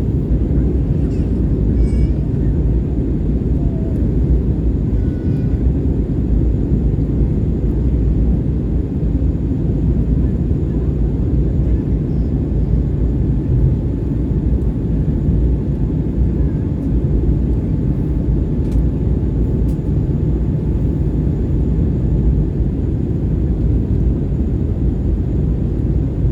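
Airbus A320neo cabin noise in descent: the steady low rumble of airflow and the CFM LEAP-1A engines, with a faint steady whine above it.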